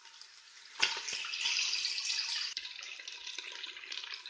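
Chicken pieces frying in hot ghee in a pot: a loud sizzle starts suddenly about a second in and goes on crackling at a lower level.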